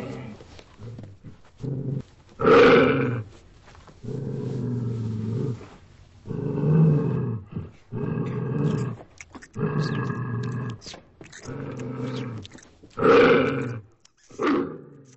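Growls and roars of a werewolf character: a long string of rough, pitched animal-like calls, some drawn out for a second or two, the loudest about two and a half seconds in and again near the end, before the sound cuts off suddenly.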